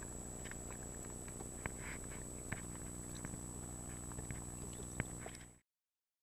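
Underwater ambience recorded through a camera's underwater housing: a steady low hum with a constant high whine and scattered faint clicks and ticks. The sound cuts off abruptly near the end.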